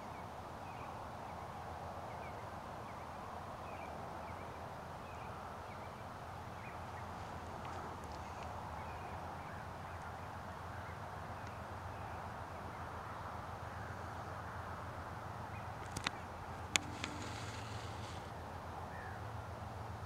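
A distant flock of geese calling, a steady mass of overlapping honks and short calls. Two sharp clicks stand out about three-quarters of the way through.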